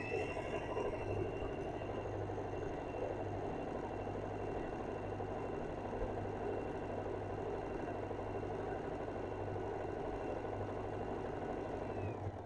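Usha Janome Allure DLX electric sewing machine running steadily while stitching a darn over a tear in cloth, its motor whining at an even speed. It winds up at the start and slows to a stop just before the end.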